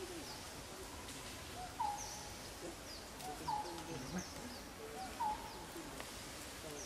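Birds calling: one repeats a short clear note about every second and a half, and thin high chirps come in between.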